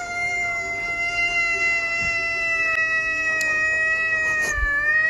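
A cat holding one long yowl at a nearly steady pitch that dips slightly near the end.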